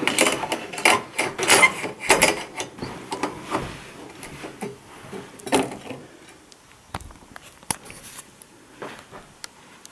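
Sheet-metal cover plate being set back in place over an LCD TV's inverter boards: a run of clanks and scrapes of metal on the metal chassis, then a few lighter, separate clicks later on.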